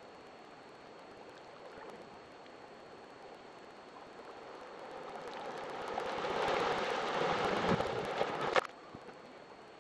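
Water splashing in a river pool: faint lapping at first, then churning splashes that build from about halfway, are loudest near the end, and cut off suddenly.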